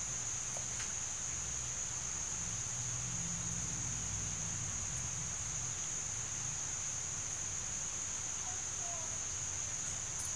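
Steady background noise: a constant high-pitched whine or chirring over a low hum, with a few faint ticks and no distinct event.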